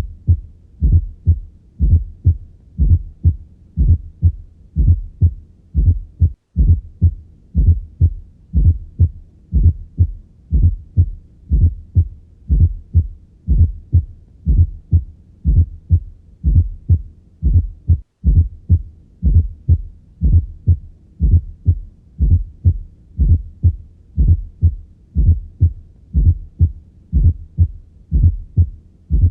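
Heart sounds heard through a stethoscope: a steady, repeating beat of low thuds with a fourth heart sound (S4, atrial gallop) just before the first sound of each beat. The S4 is the sign of a stiff, less compliant ventricle, as in diastolic dysfunction.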